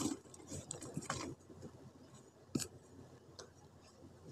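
Fingers crushing pieces of multani mitti (fuller's earth) clay against a steel plate close to the microphone. A quick run of crunchy crackles in the first second and a half, then a few isolated crisp snaps, the sharpest a little past halfway.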